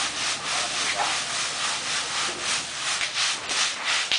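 A hanging wooden sieve tray shaken back and forth, about three scraping strokes a second, as sand and grains slide across the tray: hot sand being sifted out of freshly popped glutinous rice.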